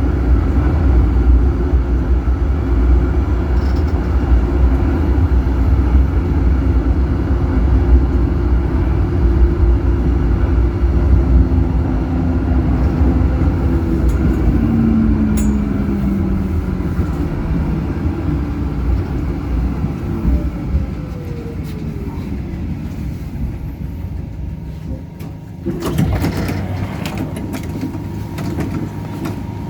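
Tram running on its rails: a low wheel-and-track rumble with the whine of the electric traction motors, which falls in pitch as the tram slows. Past the two-thirds mark there is a short noisy burst, and near the end a steady tone sets in.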